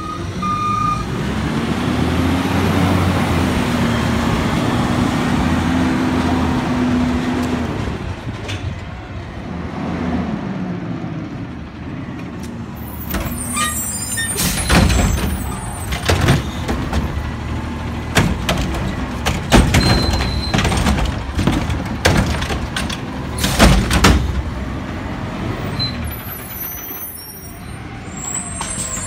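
Front-loading garbage truck with a Curotto-Can automated cart arm: the diesel engine runs loudly with its pitch climbing as the truck pulls up. From about halfway, a cart is gripped, lifted and emptied, with a string of sharp bangs and clanks from the cart and metal can.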